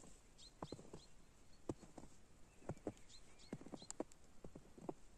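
Footsteps crunching in snow: faint, uneven crunches roughly two a second.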